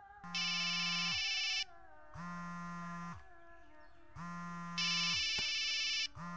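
Mobile phone ringing: an electronic ringtone tune with the phone's vibration buzzing in pulses about a second long, every two seconds.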